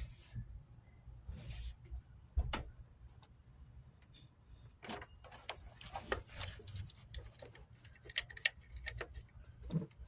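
Scattered light clicks and clinks of metal hand tools, thickening in the second half, as a new part goes into the engine bay of a 5.3 V8 being repaired for a misfire.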